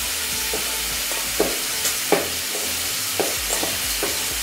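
Bare hands squishing a wet canned-salmon croquette mixture in a stainless steel bowl, giving short, irregular squelches. Under it runs a steady hiss of bacon frying in a pan.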